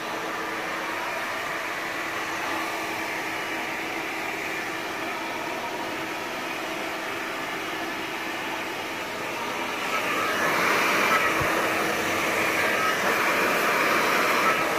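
Powerful 3500 turbo hand-held hair dryer blowing steadily with a faint hum. It gets louder about ten seconds in, as it is brought to the hair over a round brush during a straight blow-dry.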